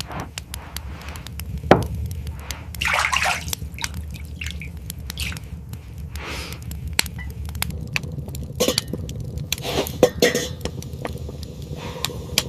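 Water splashing and dripping in a basin, with clinks of dishes and scattered clicks over a low steady rumble. The loudest splash comes about three seconds in.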